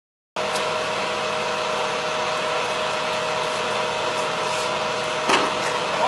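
An engine running steadily, cutting in suddenly just after the start, with one sharp knock about five seconds in.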